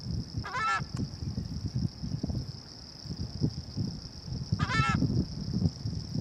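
Two short calls from a flock of terns, about four seconds apart, over the low rumble of surf and wind, with a steady high hiss throughout.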